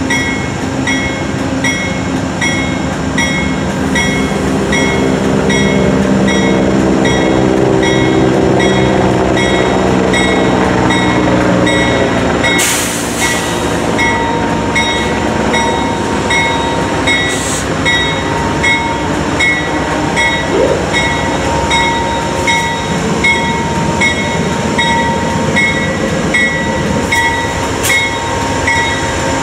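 Amtrak GE P42DC Genesis locomotive's diesel engine revving up as the train starts away, while a bell rings steadily at about one and a half strikes a second. A short burst of air hiss comes about 13 seconds in.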